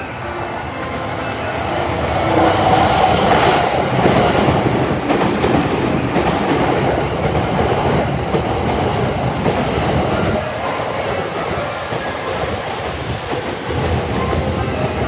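A 15-car train pulling into the platform. It grows louder over the first three seconds, then runs on as a steady rumble and clatter of wheels on rails.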